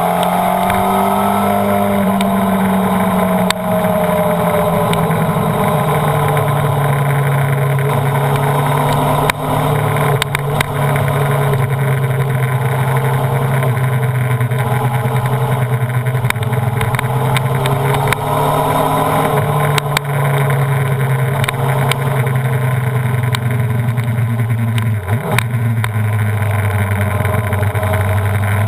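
Honda CBR929RR's inline-four engine running at track speed under heavy wind rush. The engine note holds mostly steady, rises and falls slowly with the throttle, and dips briefly near the end.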